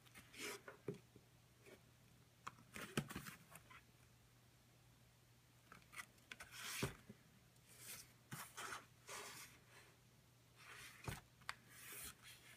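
Cardboard box being handled and opened: scattered scrapes and rustles of card sliding against card, with a few sharp knocks.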